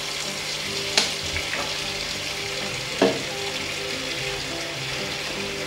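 Kitchen tap running a steady stream into a stainless steel sink, with two sharp knocks about two seconds apart.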